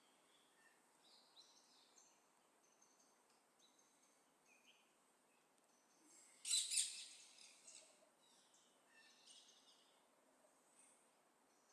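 Faint high chirping of small birds, scattered throughout, with one louder burst of chirps a little past halfway.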